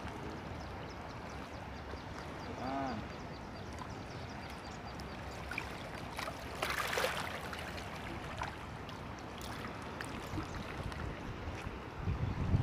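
Hooked fish splashing briefly at the water's surface about seven seconds in, over a steady outdoor hiss of water and air. Low rumble on the microphone near the end.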